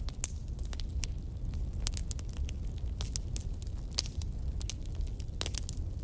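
Wood fire burning in a fireplace: irregular sharp crackles and pops from the logs over a steady low rumble of the flames.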